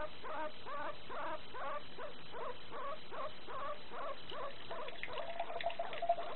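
Guinea pig wheeking in a rapid series of short squeaky calls, about two to three a second, thinning out after about four seconds. Near the end a steady tone with light clatter comes in, as of water starting to run from the tap.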